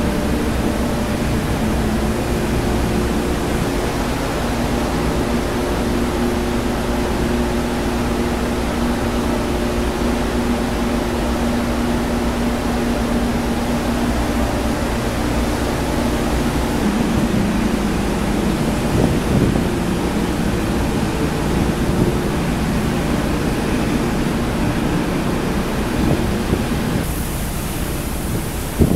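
Steady rushing noise of wind and sea aboard a ship, over a low drone from the ship's machinery that fades out about halfway through.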